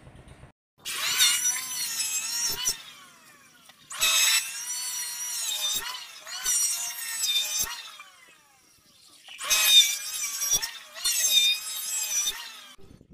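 Electric hand planer cutting along a wooden beam in about five passes of a second or two each. Its motor whine dips and recovers in pitch as the blade bites.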